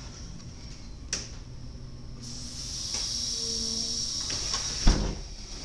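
VIRM double-deck electric train's passenger door: a steady air hiss builds from about two seconds in, the door-open button is pressed, and near the end the door releases with one sharp, loud clunk.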